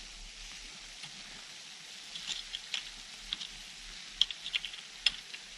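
Garden ground being worked by hand in grassy, sandy soil: scattered crisp crunches and ticks, thickest in the second half, over a steady hiss.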